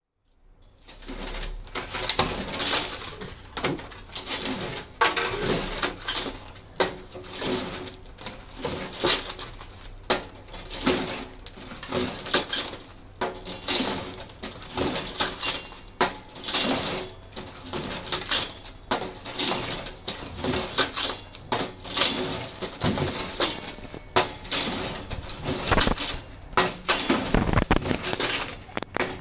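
Repeated crinkling and rustling of plastic cling film and punnets being handled and wrapped on a cling film dispenser, in short irregular bursts about once or twice a second.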